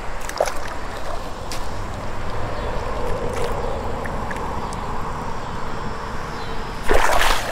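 Shallow creek water running steadily, with wind on the microphone. Near the end, a loud half-second splash as a flathead catfish held in the shallows on a lip-grip tool thrashes in the water.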